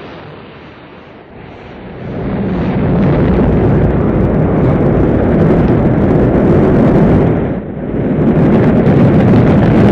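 A loud, deep rumbling noise that swells about two seconds in, stays heavy, and dips briefly near the end.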